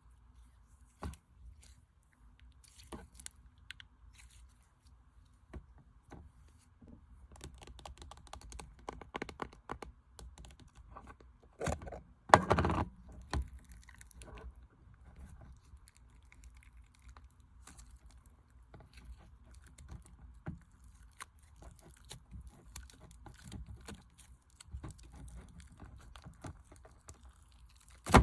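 Slime being handled and played with: scattered small clicks, crackles and crunchy tearing sounds, with a louder cluster of squishes and pops about twelve seconds in.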